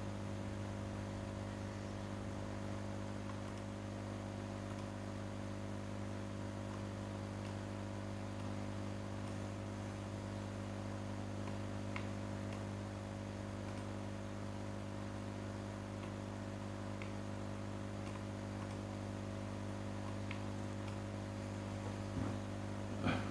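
Steady low electrical mains hum, with several even overtones stacked above it. A few faint clicks sound through it, and a short, louder noise comes near the end.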